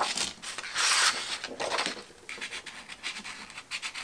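Sharpened Conté crayon point scratching on paper in drawing strokes. Two longer, louder strokes come in the first two seconds, then quicker, fainter ones.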